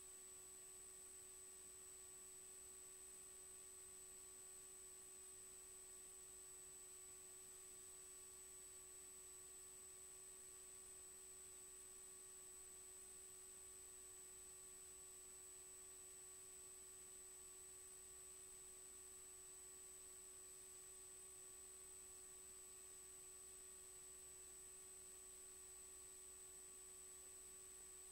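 Near silence: a faint, steady electrical hum and hiss with a thin high-pitched whine, unchanging throughout.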